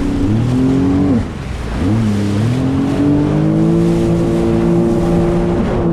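Jet ski engine running at speed; its pitch drops about a second in as the throttle comes off, then climbs back up and holds steady as it accelerates again.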